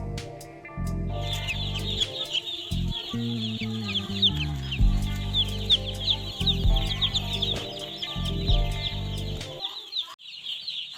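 A large flock of chicks peeping densely, many overlapping high chirps starting about a second in. Background music with a steady bass line plays under it and stops near the end, leaving the chicks alone.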